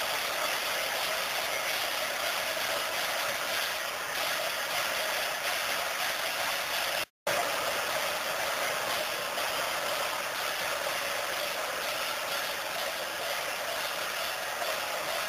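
Steady noisy din of a large crowd, which drops out completely for an instant about seven seconds in.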